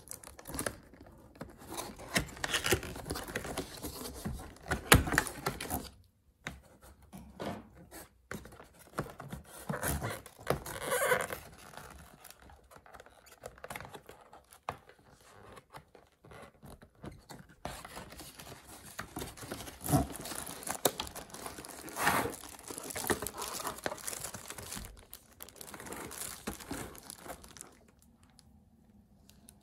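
Unboxing handling noises: a tape seal peeled off a cardboard box, then cardboard sliding and scraping and packaging rustling, in irregular bursts with sharp knocks and short pauses.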